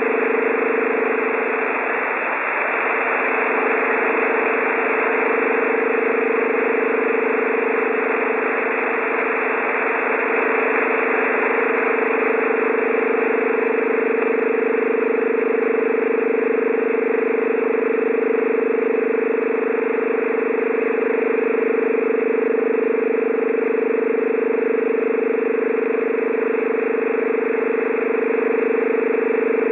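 An unidentified shortwave radio signal on 16206 kHz: a steady droning buzz made of several low tones over a bed of static hiss, heard through a narrow radio receiver's sound. It wavers briefly about two seconds in, then holds steady.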